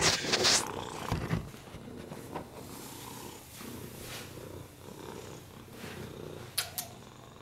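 Domestic cat purring steadily with a low rumble, lying on a lap with the microphone close to it. Rustling and handling noise in the first half-second, and two short clicks near the end.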